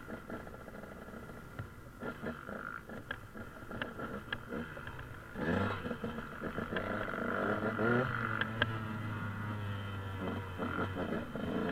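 Scattered clicks and faint muffled sounds, then about halfway through an engine starts suddenly and runs on steadily.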